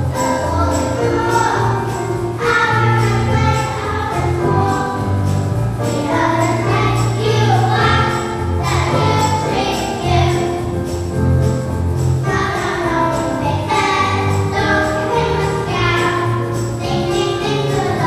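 Music: a choir of voices singing over an accompaniment with jingling bells.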